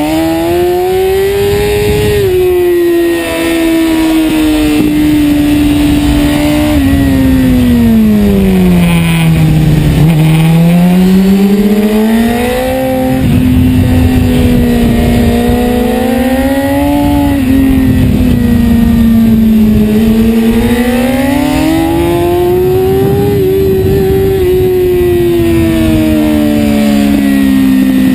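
BMW S1000RR inline-four engine heard from on board at track speed. The revs climb and fall through the corners, and the pitch drops sharply at gear changes, over a steady rush of wind.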